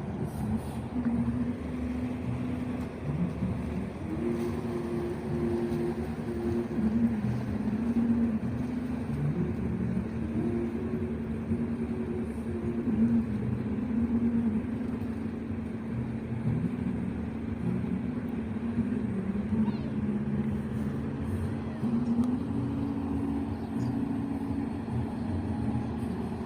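Road traffic: vehicle engines running with a steady hum that shifts in pitch now and then, over general outdoor noise.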